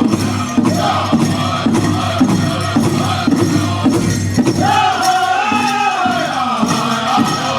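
Southern-style powwow drum group singing a crow hop song, the big drum struck in a steady beat. A high-pitched lead voice comes in a little past halfway.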